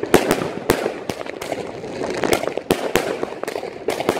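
Fireworks and firecrackers going off all around: sharp bangs at irregular spacing, several a second, over a continuous crackle of more distant explosions.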